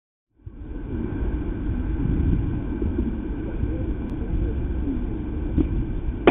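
Steady low outdoor rumble with faint distant voices calling over it.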